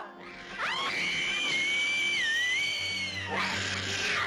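A long, shrill scream that rises sharply, holds high and steady for about two and a half seconds with a brief dip in pitch, then fades, followed near the end by a rushing swell and a low hum.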